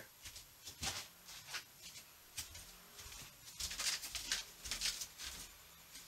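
Faint, scattered rustles and light knocks from a printed sheet in a clear plastic sleeve being picked up and handled.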